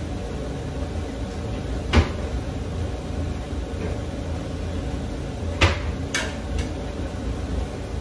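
Kitchen cupboard and cookware knocks, two sharp ones about two seconds and five and a half seconds in, then two lighter clatters, over a steady low rumble from the gas hob under a pot of cooking rice.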